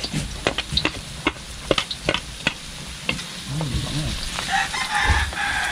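Garlic and ginger sizzling in hot oil, with a spatula stirring and clicking irregularly against the pan. A chicken calls near the end.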